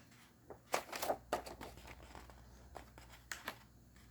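A paperback picture book being handled, its paper rustling, with a cluster of sharp clicks about a second in and two more a little past three seconds.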